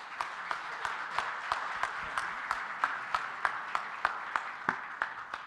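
An audience applauding: a dense patter of many hands clapping, with one nearer clapper standing out in an even rhythm of about three claps a second.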